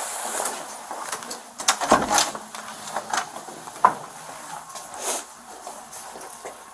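A door is pushed open and people walk through it, giving a handful of short knocks and clicks, the loudest a little under two seconds in and at about four seconds. The sound is picked up on a police body camera.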